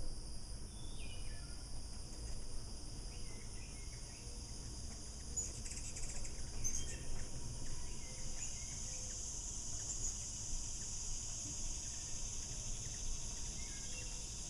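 A steady, high-pitched insect chorus of cricket-like trilling, with scattered short bird chirps over it and a low rumble underneath.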